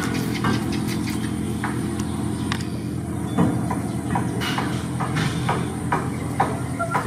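A steady low mechanical hum, with many short sharp clicks scattered through it.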